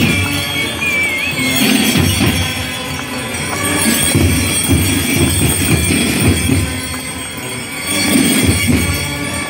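Gilles dancing in a round: the bells on their belts jingle with each step over steady rhythmic stamping and drum beats, and a high melody line stops about two seconds in.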